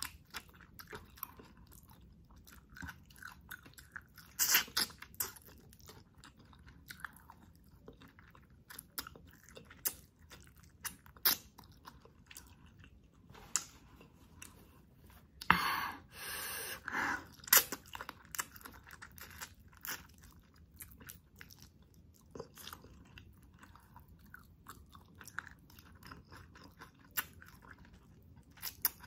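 A person chewing and biting mouthfuls of chicken adobo in coconut-milk sauce, eaten by hand: close-up mouth sounds made of many short smacking clicks. About halfway through there is a louder rustle lasting about two seconds.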